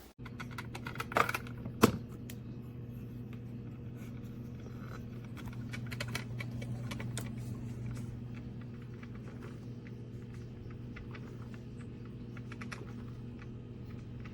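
Single-serve drip coffee maker brewing: a steady low electrical hum with scattered light ticks and crackles, a few louder clicks in the first two seconds.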